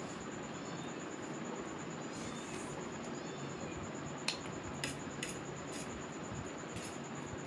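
Steady whir of an overhead ceiling fan, with a handful of short, sharp clicks from about four to seven seconds in, from eating off a plate.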